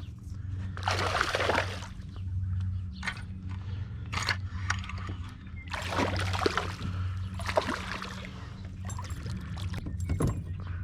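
Water sloshing and splashing in a few short bursts over a steady low hum.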